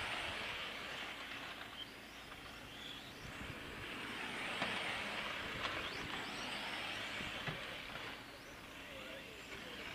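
1/8-scale electric on-road RC racing cars running laps, their motors and tyres making a steady hiss that swells louder twice as they pass and fades between.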